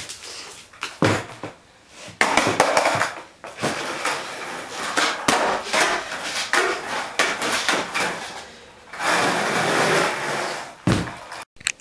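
Skateboard wheels rolling on the garage's concrete floor, broken by several sharp wooden clacks of the board being popped and landing.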